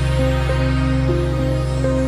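Background music: a calm electronic piece with a melody of steady notes changing about every half second over a sustained low drone.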